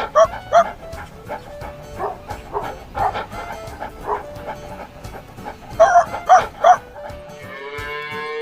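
A dog barking over background music: two sharp barks, then a run of softer barks, then three quick loud barks. Near the end a long, drawn-out call begins.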